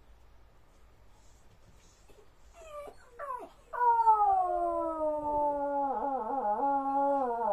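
Jack Russell terrier howling. A couple of short rising whines come about two and a half seconds in, then one long howl that slowly falls in pitch and wavers near the end. It is howling for its absent owner.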